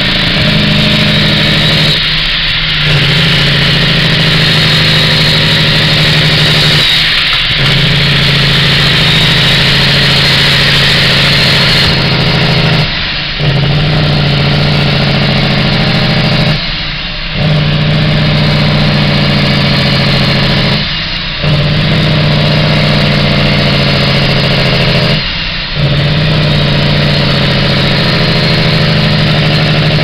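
Logging truck's diesel engine running steadily under way, heard from inside the cab, with a brief drop in the sound about every four to five seconds.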